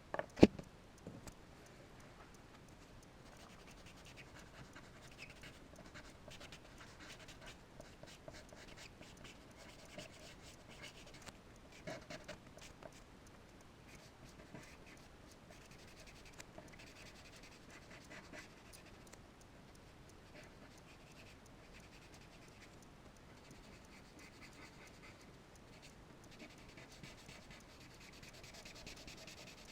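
Charcoal scratching and rubbing on paper in irregular strokes as a sketch is drawn and blended. There is one sharp knock about half a second in.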